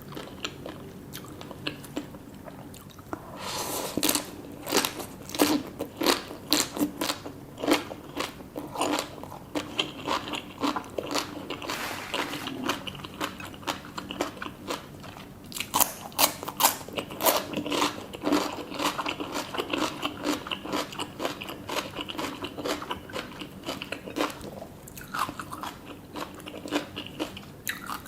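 Close-up eating sounds: crunchy food bitten and chewed, with rapid crisp crunches that start about three seconds in and go on in dense runs.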